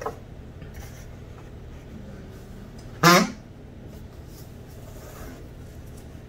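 A short, squeaky honk about three seconds in as the tight-fitting lid of a rigid cardboard tablet box is pressed down, with light handling and sliding of the box before and after.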